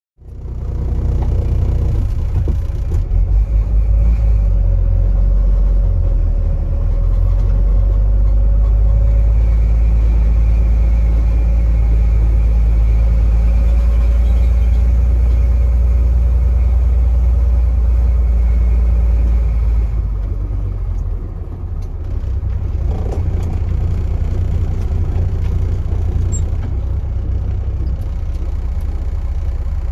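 KAMAZ truck's diesel engine running with a heavy, steady low rumble and a faint steady whine on top. About 20 seconds in, the sound dips briefly and the whine stops, then the rumble settles back at a slightly lower level.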